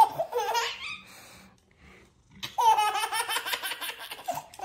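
Baby laughing: a short high-pitched giggle at the start, then after a brief pause a longer run of quick belly laughs.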